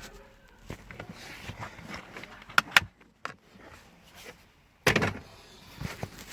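A scatter of sharp clicks and knocks from car interior parts being handled: two quick sharp clicks about halfway through, then a heavier knock and a smaller one near the end.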